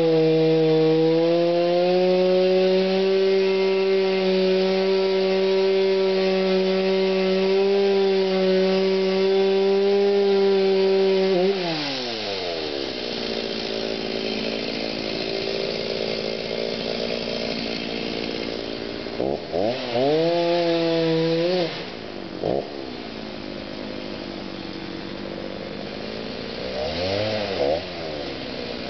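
Two-stroke chainsaw held at full throttle with a steady high engine note, cutting into a cedar trunk, for about eleven seconds. It then drops to idle, is revved up again for about two seconds around twenty seconds in, and is blipped once or twice near the end.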